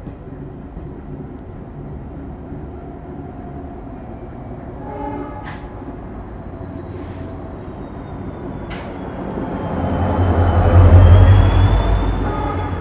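Twin ALCO diesel locomotives chugging as they accelerate a passenger train, heard from the coaches behind, with a steady low rumble and a few sharp clanks. The rumble swells about ten seconds in and is loudest near the end.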